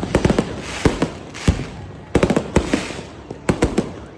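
Fireworks going off: rapid irregular clusters of sharp bangs and pops with crackling in between.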